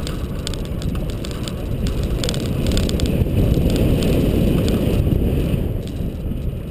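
Nissan GU Patrol with the TB45 engine driving along a dirt track. Low rumble with wind buffeting the microphone and scattered clicks and knocks, easing off a little near the end.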